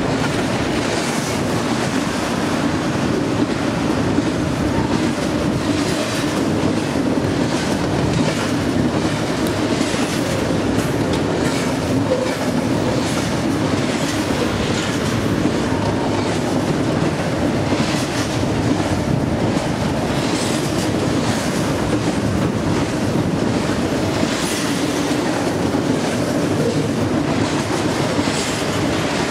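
BNSF double-stack container train passing close by: steel wheels running on the rails in a steady loud rumble, with repeated clicks as the wheels cross rail joints.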